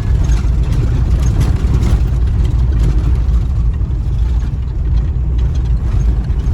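Steady low rumble of a vehicle travelling on a rough road, with faint scattered knocks.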